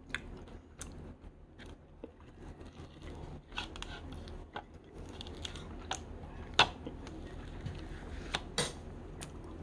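Close-up eating of shaved ice (injeolmi bingsu) from a cup: chewing and crunching with sharp clicks and scrapes of the spoon in the cup, the loudest clicks about six and a half and eight and a half seconds in. A steady low hum runs underneath.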